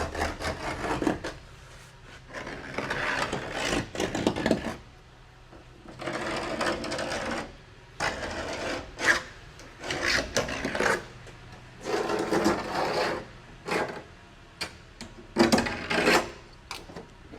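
Hand file and deburring tool scraping along the freshly jigsaw-cut steel edge of a van door's window opening, in a series of uneven strokes of about a second or less with short pauses between them, taking the burrs off the cut.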